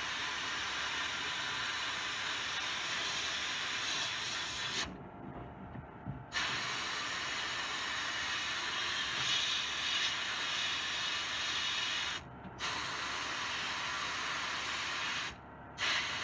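Blast cabinet gun hissing steadily as it blasts rust off a Tonka forklift part. The hiss stops for over a second about five seconds in, and briefly twice more later, when the trigger is let off.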